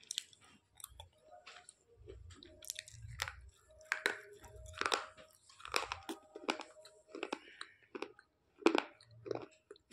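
Close-up sound of a person biting and chewing a white slate pencil: sharp, irregular crunches as the stick snaps and grinds between the teeth, the loudest a little before the end.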